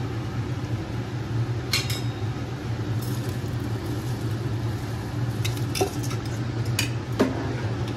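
Metal slotted spoon clinking and scraping against a metal vessel and pot rim as soaked rice is tipped into a pot of boiling water. There are several sharp metallic clinks over a steady low hum.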